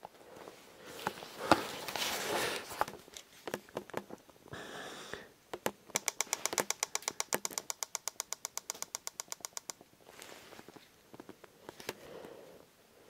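Close handling noise of rustling and scattered knocks, then a rapid, even run of sharp clicks, about ten a second, lasting about four seconds.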